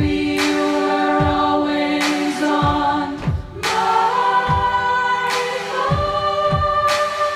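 Choir of many voices singing long held chords with a live indie rock band, the chord changing twice. Underneath runs a slow drum beat: deep hits about every 0.8 s and a sharper crack about every 1.6 s.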